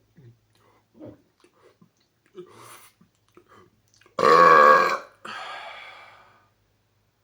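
A man's loud, pitched burp about four seconds in, lasting about a second, followed by a fainter breathy tail that fades away.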